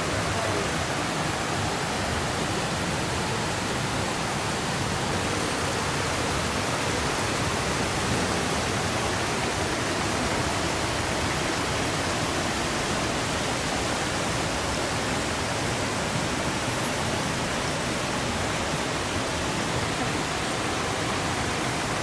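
Water rushing over rocks in a shallow rainforest stream with small cascades: a steady, even rush.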